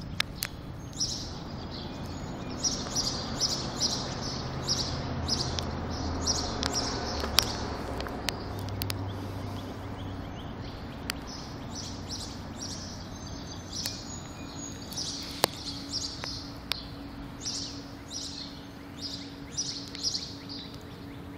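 Small songbirds chirping over and over in quick runs of short, high notes, over a low steady hum, with a few sharp clicks.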